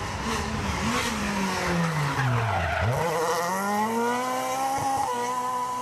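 Rally car engine going through a bend: the revs fall steadily to a low point about halfway through, then climb again and hold high as it accelerates away.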